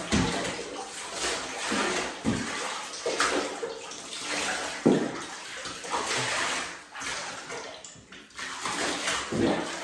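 Bathwater splashing and pouring in a bathtub as a yellow Labrador puppy is rinsed with water scooped and poured from a cup, in a run of uneven splashes.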